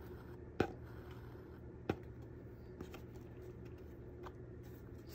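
Light handling noise of hand bookbinding: two sharp little clicks about a second apart near the start, then a few fainter ticks, as the journal's covers and spine are handled while the needle and thread go down through a stitching hole. A faint steady hum runs underneath.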